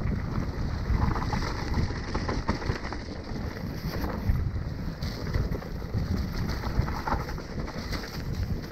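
Mountain bike ridden fast down a dirt trail strewn with dead leaves: wind rushing over the camera microphone, tyres rolling over the ground, and the bike knocking and rattling over bumps.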